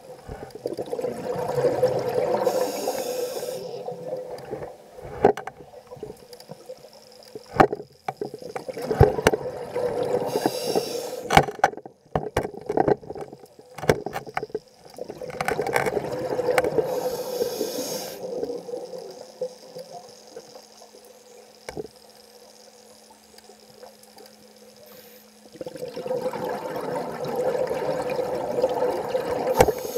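Scuba diver breathing through a regulator underwater: a hiss on each inhale and a burst of gurgling exhaust bubbles on each exhale, recurring every several seconds. Sharp clicks fall between breaths near the middle.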